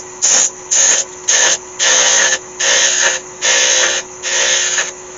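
Parting-off tool cutting into the spinning Iroko workpiece on a wood lathe, in short repeated bursts of cutting noise about one every two-thirds of a second, as the tool is fed in at an angle to part the piece off. The lathe hums steadily underneath.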